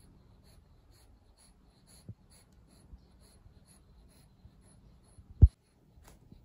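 A cat sniffing at plastic treat pouches, faint short sniffs ticking about twice a second. There is a soft knock about two seconds in and a sudden, much louder dull thump about five and a half seconds in.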